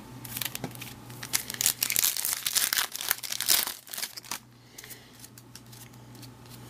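A foil trading-card pack being torn open and its wrapper crinkled, a dense crackling from about a second and a half in until past four seconds, then quieter handling noise.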